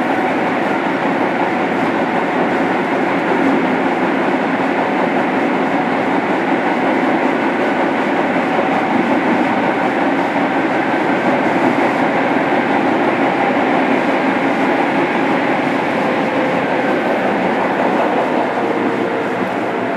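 Steady running noise heard inside a JR Kyushu 103-series electric motor car (MoHa 102-1506) on the move in a subway tunnel. Wheels rumble on the rails, with a faint hum from the MT55 traction motors.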